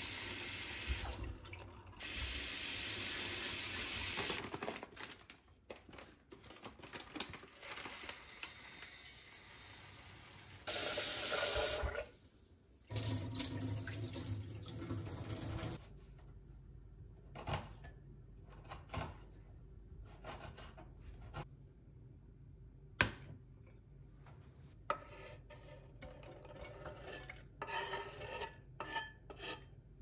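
Kitchen tap running into the sink over kale leaves in a stainless steel colander as hands rinse them, for the first few seconds, with a brief louder rush later. Then quieter cutting on a wooden chopping board, with scattered sharp knife knocks.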